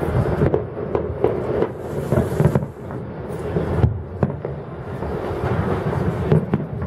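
Distant fireworks going off, a run of irregular booms and sharp pops over a continuous low rumble.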